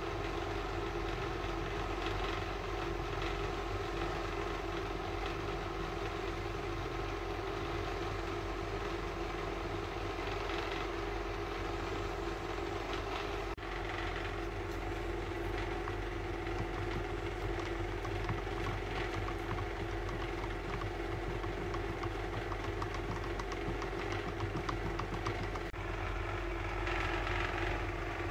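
Steady mechanical hum of a running motor, like a fan, with no change in pitch, briefly dipping about halfway through and again near the end.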